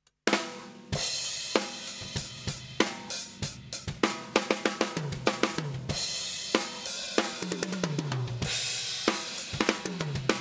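Acoustic drum kit played in a steady groove of snare, bass drum, hi-hat and cymbals, opening on a cymbal crash, with tom runs going down in pitch several times from about halfway on. Close-miked and run through a compressor, so the level stays even under the sharp hits.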